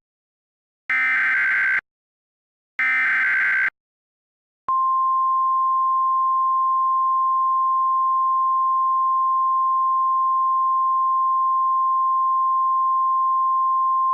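Emergency Alert System header and attention tone: two short buzzy digital data bursts about a second apart, each lasting about a second, then about four and a half seconds in a long steady single-pitch attention tone begins.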